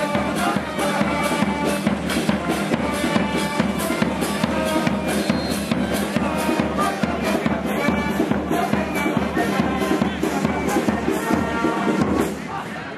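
Brass band music with a bass drum beating a steady, quick rhythm under trombone-like brass lines; it stops near the end.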